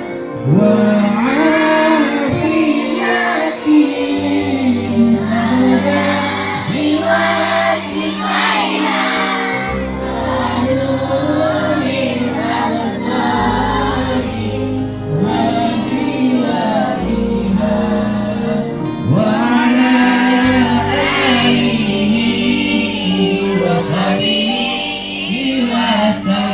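Shalawat, Islamic devotional singing: voices singing a winding melody together over held low backing notes that change every few seconds.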